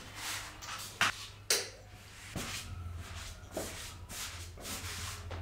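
Faint rustling and shuffling of a person getting up from the table and moving away, with a couple of sharp clicks about a second in, over a steady low hum.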